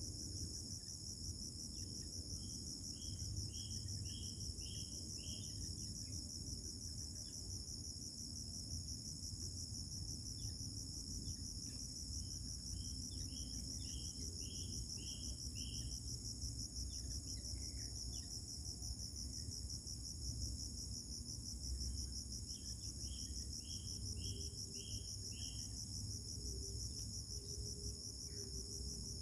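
A steady, high-pitched insect trill with a fast, even pulse, typical of crickets. Three times, about ten seconds apart, a quick run of about six short notes sounds over it.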